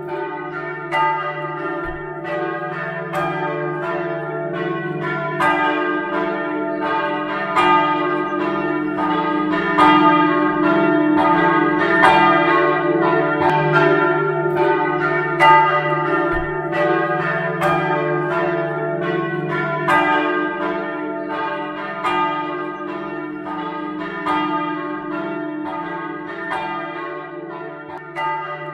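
Church bells ringing a peal: several bells struck over and over, one or two strokes a second, their ringing overlapping above a steady low hum. The ringing cuts off suddenly at the end.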